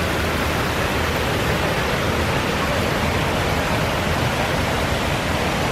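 Waterfall rushing: a steady, even noise of falling water with no let-up.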